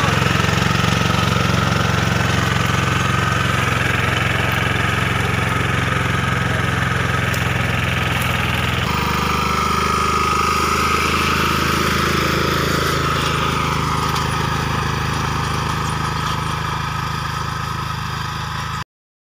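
Engine of a 10.5 hp three-wheeled 'Bullet' mini tractor running steadily. The sound changes abruptly about halfway through as the tractor works the field, and it cuts off suddenly just before the end.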